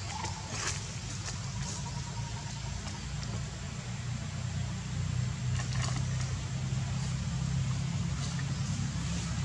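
Low, steady engine hum of a motor vehicle idling or running nearby, with a few faint clicks over it.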